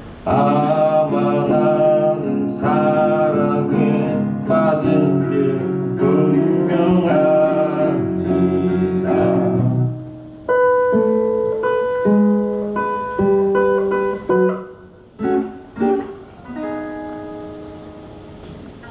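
Acoustic guitar strummed hard, with harmonica from a neck rack playing over it; about halfway through the strumming drops away and the harmonica holds single long notes over sparse guitar, closing the song.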